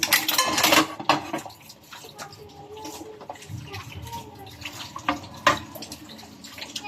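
Water running, with a cluster of sharp clattering knocks in the first second and a half and two more knocks about five seconds in.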